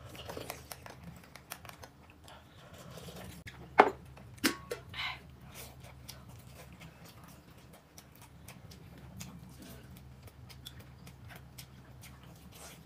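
Table eating sounds: spoons and chopsticks clicking against glass cups and plates, with soft slurping, and a sharp clink about four seconds in.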